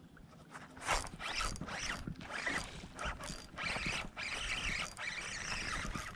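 Fishing reel being cranked in uneven bursts as line is reeled in, with a steadier run of cranking over the last couple of seconds.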